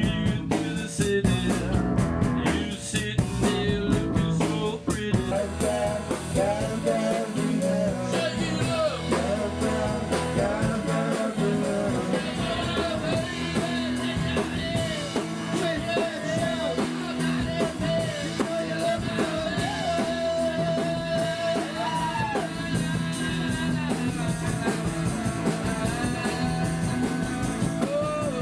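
Live rock band of electric guitar, bass and drum kit playing a song. A singer comes in about five seconds in and holds one long note near the end.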